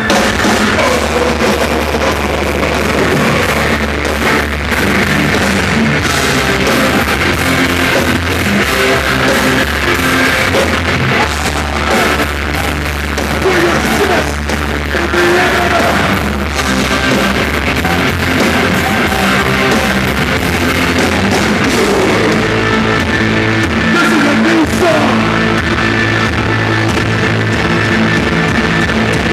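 Live hard-rock band playing loudly: distorted electric guitars, bass and drum kit, with some singing.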